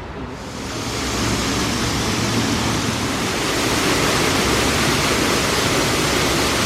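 Rushing water of a waterfall: a steady, full-range roar of falling water that builds up over the first second.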